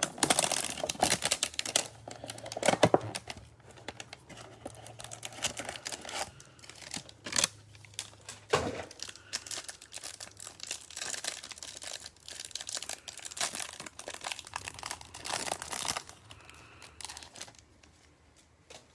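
A trading-card hanger box opened and the clear plastic wrapper crinkled and torn off a stack of cards. Rapid sharp crackling, loudest in the first three seconds, dying away near the end.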